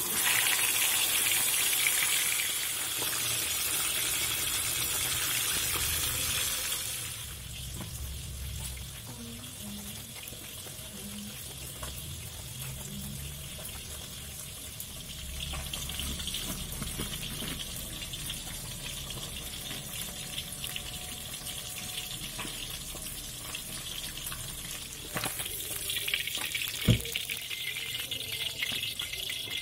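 Hot oil sizzling in a wok as a fish fries, loud for the first several seconds, then dying down to quieter kitchen handling sounds. Near the end the sizzling picks up again and there is one sharp clink as the fish is lifted out in a wire frying basket.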